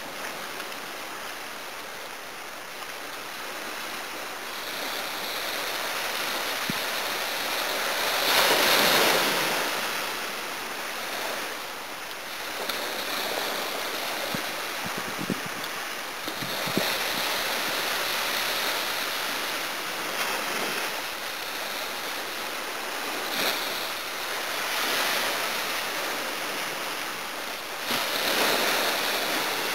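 Small sea waves breaking and washing up the beach, a steady rushing wash that swells louder every few seconds, loudest about a third of the way in and again near the end.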